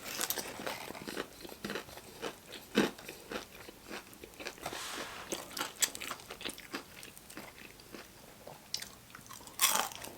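Close-up biting and chewing of crispy Popeyes fried chicken: irregular crackling crunches of the breading, with a few louder crunches, the loudest near the end.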